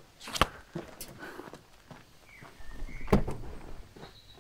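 A sharp knock about half a second in, then a heavier car-door clunk about three seconds in from the armoured off-roader's driver's door, with faint rustling of paper between.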